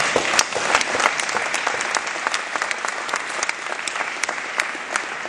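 An audience applauding, many hands clapping together; the clapping thins out and gets quieter toward the end.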